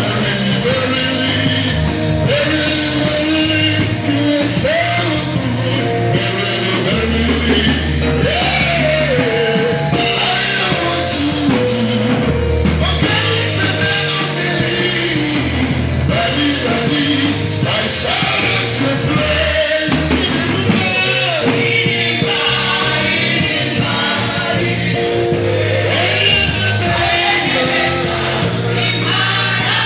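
Live gospel music: voices singing a melody over a band with bass accompaniment.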